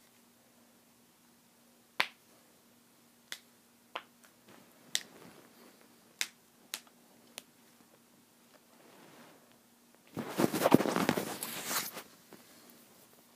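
A handful of sharp, separate clicks or taps spread irregularly over a few seconds, then about two seconds of louder crackling, rustling noise near the end.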